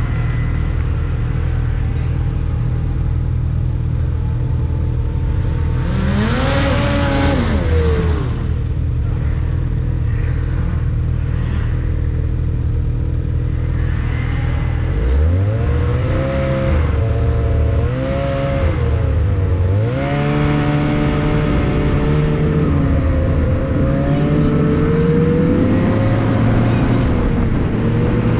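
Snowmobile engine running while riding along a trail, its pitch rising and falling with the throttle: one surge about six seconds in, then a run of rises and dips from about halfway through before it settles into a steady pitch.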